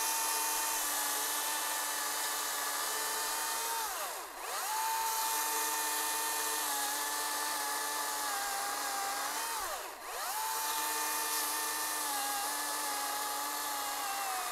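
Milwaukee battery-powered top-handle chainsaw with a 14-inch bar cutting through a seven-inch spruce log: a steady high electric motor whine with chain noise, sagging a little in pitch under load. About four seconds in and again near ten seconds the whine drops sharply and then climbs back.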